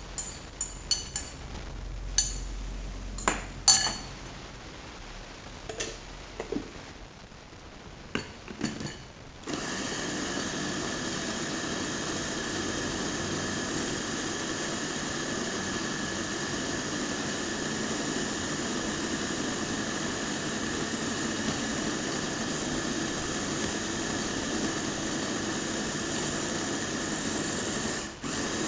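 A few sharp clicks and clinks, then from about ten seconds in an electric mini food chopper runs steadily with a constant whine, grinding chilies into sambal paste, and stops near the end.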